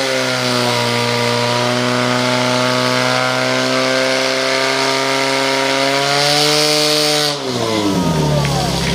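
Portable fire pump's small engine running flat out at steady high revs, driving water through the attack hoses. A little past seven seconds in, the revs fall away sharply.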